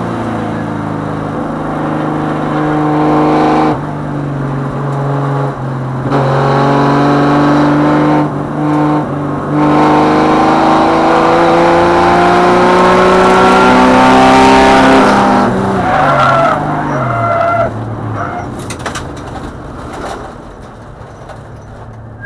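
AMC Hornet race car's engine heard from inside, pulling hard with gear changes about 4 and 6 seconds in and its pitch climbing slowly along a straight. About 15 seconds in the revs fall sharply as the brakes go on hard, with tyres squealing for a couple of seconds as the car slides off the track, then the engine runs on more quietly with a few knocks.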